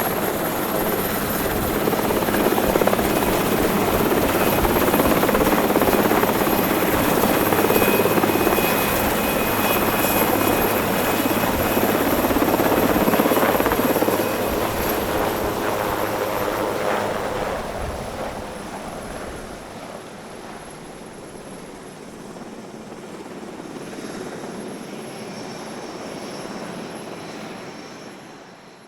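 Cabin noise inside an SH-3 Sea King helicopter: its twin turboshaft engines and rotor running as dense, loud noise with a steady high whine on top. The sound falls away through the second half and fades out at the end.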